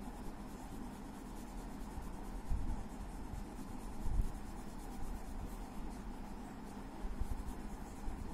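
Orange crayon scribbling back and forth on drawing paper, a steady scratchy rubbing as colour is laid over yellow to shade an orange. There are two soft low bumps, about two and a half and four seconds in.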